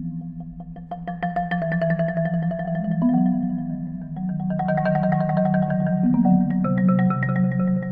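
Three prepared marimbas played with mallets, some bars fitted with objects such as stones, shakers and clamps. Fast, dense strokes ring over held low notes, and the chords shift a few times.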